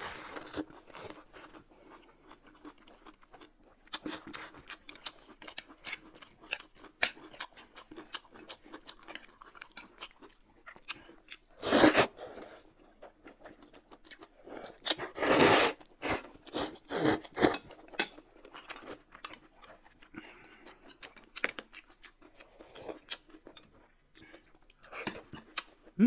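Close-miked eating sounds: steady chewing, crunching and mouth clicks, with several loud slurps of noodles about halfway through.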